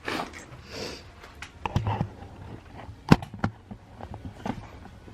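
Scattered small clicks, knocks and rustles from a wiring harness being handled and routed through a car's engine bay, with one sharp click about three seconds in.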